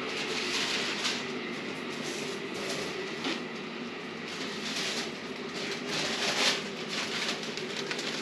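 Steady hum and rumble of bakery machinery running, with a few short papery rustles.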